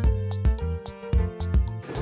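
Background music with a steady beat, about two beats a second, under sustained pitched notes.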